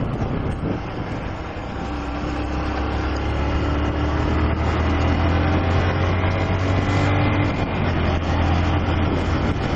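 Honda CG 125 Fan motorcycle's single-cylinder four-stroke engine running under way, getting louder over the first few seconds and then pulling at a steady pitch.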